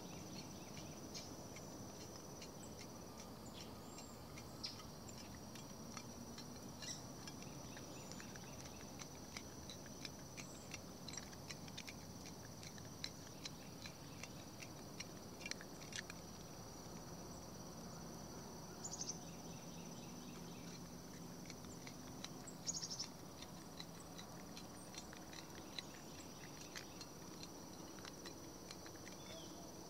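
Crickets trilling steadily on one high pitch, with scattered light clicks and a couple of louder clicks about two-thirds of the way through.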